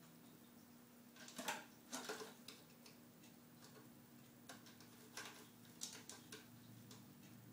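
A cat's claws and paws scratching and tapping on a cat tree's rope-wrapped post and carpeted platform as it plays: irregular light scratches, busiest about a second and a half to two seconds in and again around five to six seconds.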